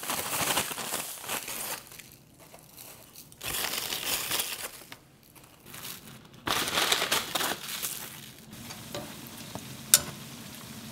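A paper bag rustling and crinkling in several bursts as it is shaken to coat fried twisted doughnuts in sugar. Toward the end, oil sizzles steadily as doughnuts deep-fry, with one sharp click about ten seconds in.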